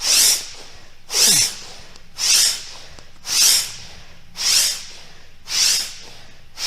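A person breathing out hard and rhythmically close to the microphone, about one hissing breath a second, while shaking the body in a yoga warm-up.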